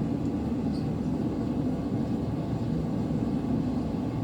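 Propane forge burner running with a steady low rush.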